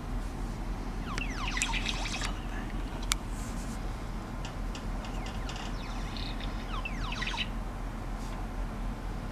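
Birds calling in rapid runs of sharply falling notes that sound like laser beams, in two bursts: about a second in and again around seven seconds.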